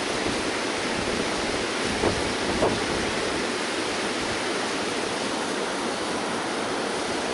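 Mountain stream rushing over rocks in a small cascade, a steady hiss of whitewater, with two light ticks a little after two seconds in.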